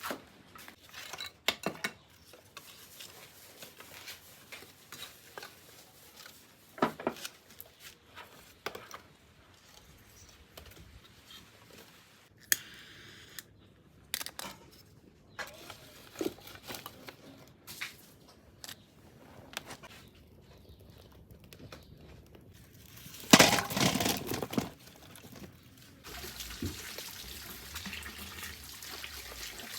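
Water and dishes being handled during food preparation: scattered clinks and knocks, a louder burst lasting about two seconds, then water running steadily near the end.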